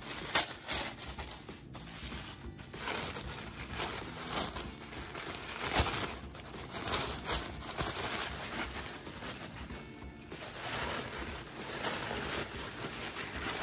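Black tissue-paper wrapping being pulled open and crumpled by hand: continuous irregular crinkling and rustling with sharper crackles.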